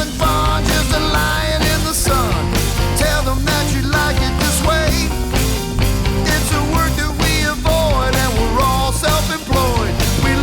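Rock song with a singing voice over a steady bass line and drum beat.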